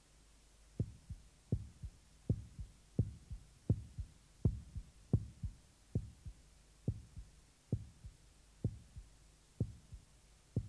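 Heartbeat sound effect: paired low thumps, a strong beat followed by a softer one, about 80 a minute and slowing slightly near the end.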